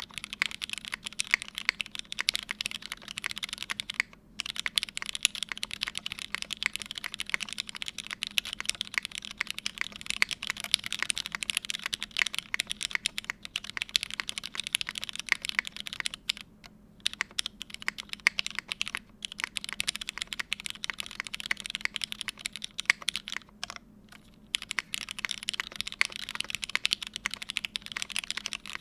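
Midway60 mechanical keyboard being typed on at a steady, fast pace: lubed Cherry Hyperglide MX Black linear switches in a half aluminium plate, under GMK keycaps. The keystrokes run as a dense run of clacks, with short pauses about four seconds in, around seventeen seconds and around twenty-four seconds.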